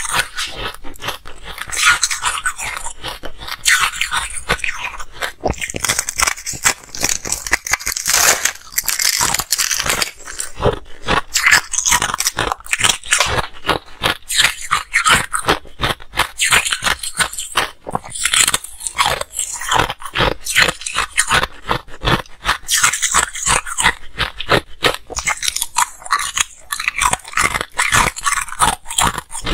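Close-miked ice crunching and chewing: a dense, continuous run of sharp cracks and crackles as pieces of a frozen ice bowl and blue shaved ice are bitten and chewed.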